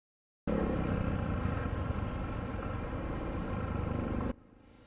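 Steady running noise of a motorcycle on the road, engine and road rumble, picked up by an action camera's external mic. It starts abruptly about half a second in and cuts off suddenly near the end.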